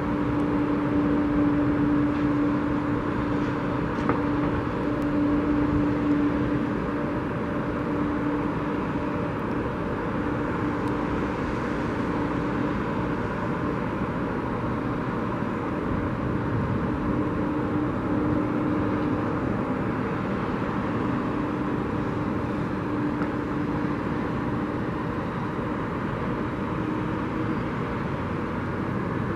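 Airbus A330-300's two jet engines running at taxi power as it rolls onto the runway to line up for takeoff: a steady distant rumble with a faint steady hum.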